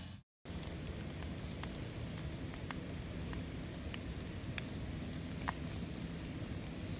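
Steady low outdoor background noise with sparse, irregular faint ticks of falling water drops.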